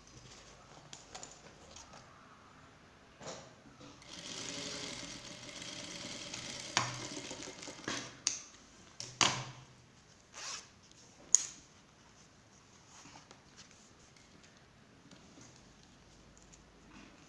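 JACK industrial lockstitch sewing machine running in one short stretch of about three seconds, followed by a handful of sharp clicks and knocks as the work is handled under the needle.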